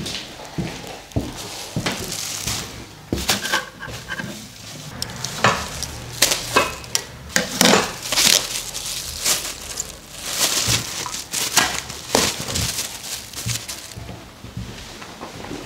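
Thin plastic bag crinkling and rustling as it is handled, in irregular crackles that are louder around the middle.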